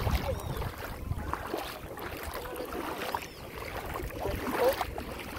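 Feet wading through ankle-deep water, with soft sloshing and splashing, and wind rumbling on the microphone in the first second.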